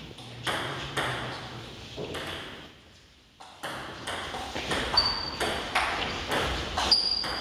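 Table tennis ball clicking off bats and the table in a doubles rally: a few hits, a short lull about three seconds in, then a quick exchange of about two clicks a second.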